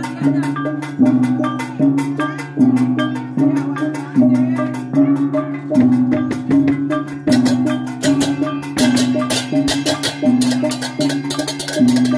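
Live Balinese gamelan accompanying a barong. Hanging gongs are struck in a steady low two-note pattern a little more than once a second, with kendang hand drums and clashing cymbals playing over it. The cymbals grow louder and denser about seven seconds in.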